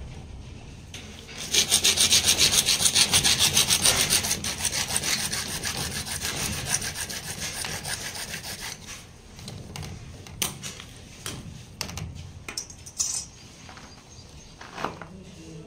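A hand-held hacksaw blade sawing through a CPVC water pipe in quick, even back-and-forth strokes. The sawing is loudest at first and fades away after several seconds, followed by a few scattered clicks and knocks.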